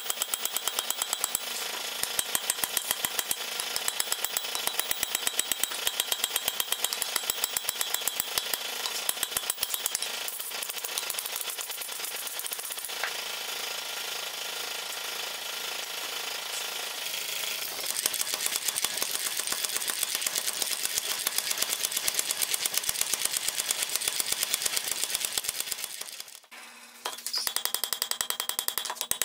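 Hand hammer striking a red-hot flat iron bar on an anvil: a quick, steady run of ringing metal-on-metal blows as the hot bar is forged. The blows stop briefly near the end, then start again.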